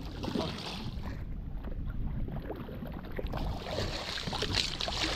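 Wind buffeting the microphone and sea water washing around a small outrigger boat, over a steady low rumble, with hissy swells of splash about half a second in and again near the end.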